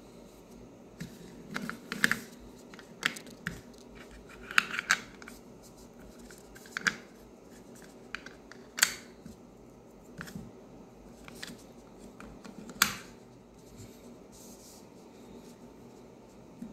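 Plastic clicks and taps of true wireless earbuds being handled and pressed into their charging case, coming irregularly.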